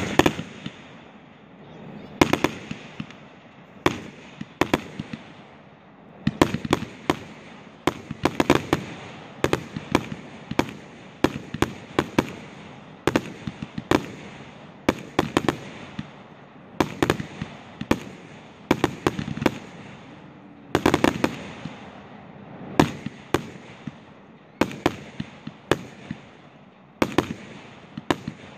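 Fireworks going off: aerial shells bursting in a steady run of sharp bangs, often several in quick succession, spread irregularly through the whole stretch.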